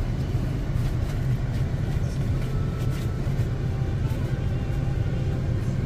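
Car cabin noise while driving slowly on a dirt track: a steady low engine and tyre rumble, with a few faint clicks.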